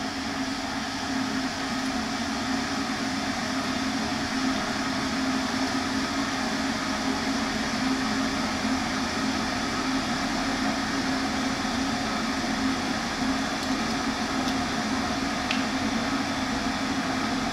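Kettle heating water, a loud steady rushing noise with a low hum under it.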